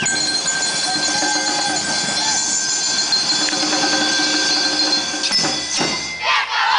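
A held chord of several high ringing tones, rolled on a handheld xylophone, over a crowd's murmur. Near the end, children shout.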